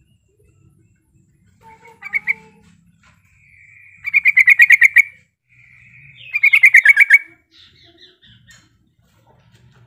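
Yellow-vented bulbul calling: a short burst about two seconds in, then two loud bursts of rapid bubbling chatter, each led in by a quieter churr. This is its challenge call to a rival, used to set other bulbuls calling.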